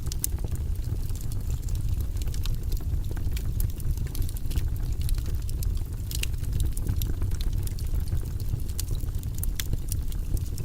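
Wood fire burning in a fireplace: frequent small, sharp crackles and pops over a steady low rumble.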